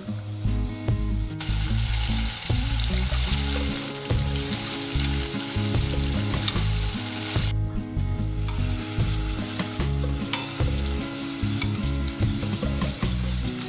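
Rigatoni pasta deep-frying in hot oil in a stainless steel pot: a loud, steady sizzle of bubbling oil, with metal tongs stirring the pieces. The sizzle starts about a second in, breaks off briefly around the middle, then resumes.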